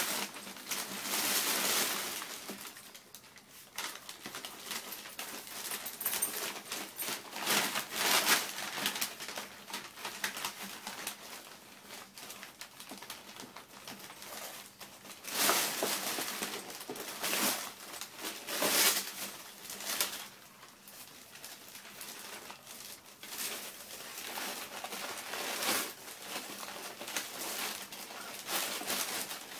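Wrapping paper crinkling and rustling in irregular bursts as a dog roots and rolls in it.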